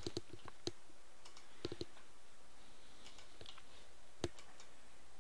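Scattered clicks of a computer mouse and keyboard: a quick run in the first second, a few more near two seconds in, and one sharper click about four seconds in, over a faint steady hiss.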